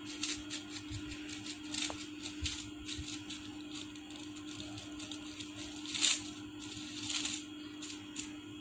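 Fringed paper crackling and rustling as fingers press and fluff out a rolled paper flower, in quick irregular crisp crackles with two louder rustles about six and seven seconds in. A steady low hum runs underneath.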